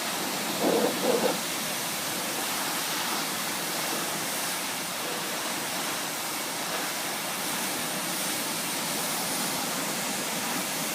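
Pressure washer spray hissing steadily against oil field equipment, with two short louder sounds about a second in.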